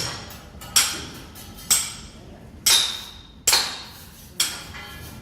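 Hammer blows struck at a steady pace, about one a second, six in all, each sharp strike ringing briefly before the next.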